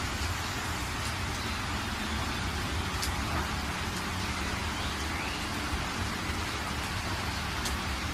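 Steady background noise: an even hiss with a low rumble underneath and a few faint ticks.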